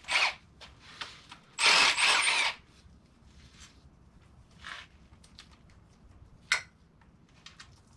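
Power tool, an impact wrench, running in short bursts as it spins out LQ4 cylinder head bolts: a brief burst at the start and a longer, louder one of about a second near two seconds in, then a faint burst and a sharp click later on.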